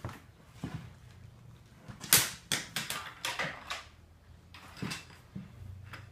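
Pencil clattering on a hardwood floor: a quick run of sharp clicks and taps about two seconds in, the first the loudest, then a single tap nearly five seconds in.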